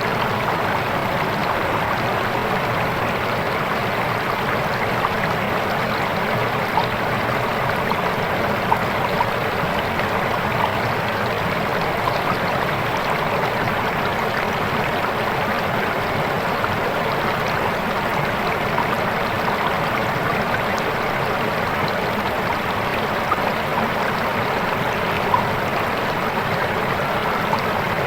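A swift, clear river rushing steadily over its bed, with a few brief splashes standing out now and then.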